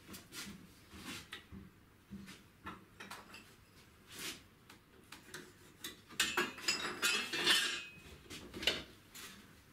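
Pencil scratching as lines are marked across a wooden board frame, amid light taps and clicks of a ruler and small tools on the workbench. A run of louder scratchy strokes comes about six to eight seconds in.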